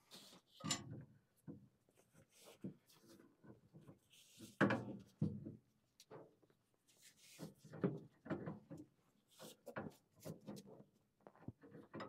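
Hands and a tool working on parts inside a gas furnace cabinet: a string of irregular knocks, clicks and rubs, the loudest about four and a half seconds in.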